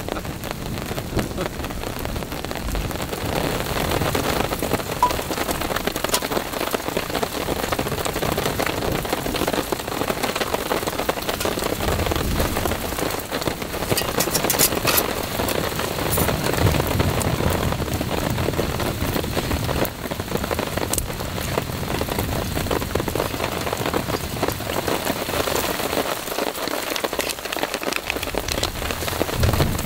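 Rain falling steadily on a tarp overhead, an even hiss of drops on the fabric, with a short run of clicks about halfway through.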